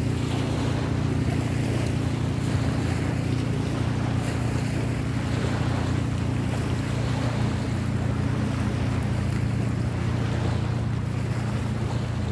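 A steady, unchanging low engine-like drone, with a haze of wind noise over it.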